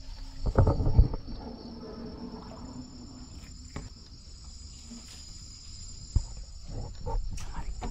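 Steady high-pitched chorus of night insects such as crickets. About half a second in come a few loud thumps and rustling, and single sharp knocks follow later, as the boat and the person at the bow push through stiff nipa palm fronds.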